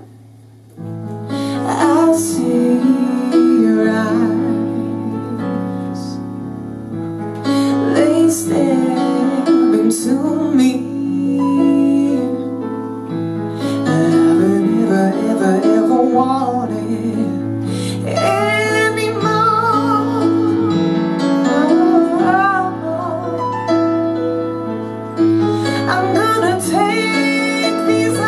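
A woman singing live into a microphone over sustained keyboard chords, in a jazz song.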